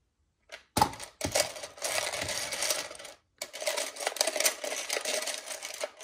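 Hands rummaging through a plastic pot of loose LEGO bricks, the small plastic pieces clattering and rattling against each other. It starts about a second in, stops briefly near the middle, then carries on.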